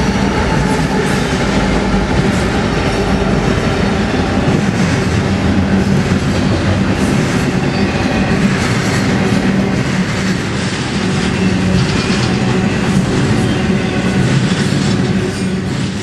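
Freight train passing close by: diesel locomotives going past, then a line of double-stack container cars, a loud steady rumble with a low hum and the steel wheels clicking over the rails.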